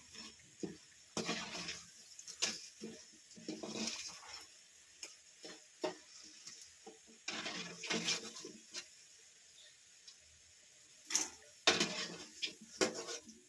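Irregular kitchen handling noise while bajji fritters are being made and plated: clinks and scrapes of utensils on pots and plates, with short bursts of hiss every second or two.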